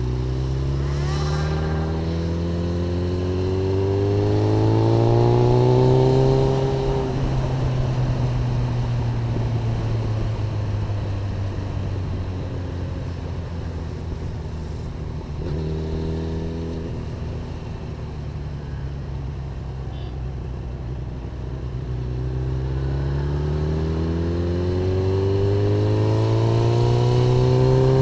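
Motorcycle engine heard from on board the bike, rising in pitch as it accelerates over the first six seconds or so, then running steadily at cruising speed, and rising again near the end as the bike speeds up once more.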